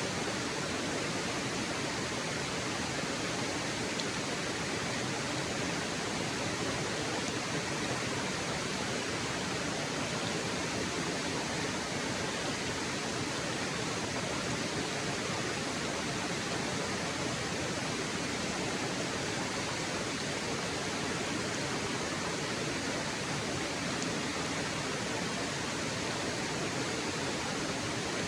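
Waterfall: falling water in a steady, unbroken rush with no changes.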